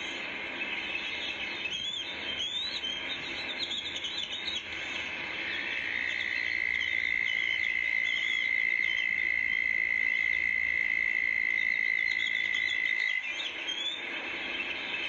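Outdoor animal calling: repeated short, rising chirps over a steady hiss, joined about five seconds in by a steady high-pitched buzz that holds for about seven seconds and then stops.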